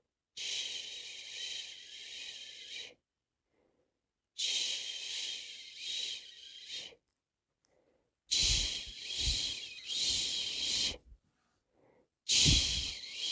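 A person shushing a long 'shhh' to soothe a baby to sleep. There are four hushes of about two and a half seconds each, with short silences between them. Each hush pulses gently, and the last two start with a puff of breath on the microphone.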